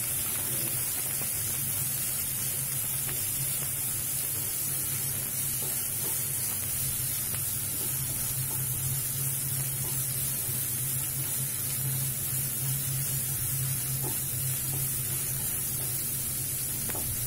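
Chopped onion and green chilli frying in a little oil in a kadhai, sizzling steadily while being stirred with a spatula, the onion at the half-fried stage. A steady low hum runs underneath.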